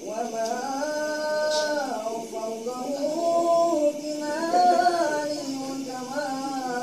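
A man's solo voice chanting a rawi passage of Arabic maulid text in a melodic recitation style, holding long notes that bend and glide in ornamented turns, without accompaniment.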